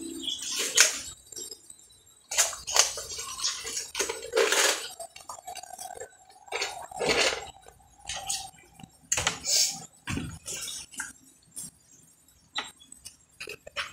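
Eating noises close to the microphone: irregular short crunches and clicks of chewing fried food, with light clinks of utensils against the takeout containers.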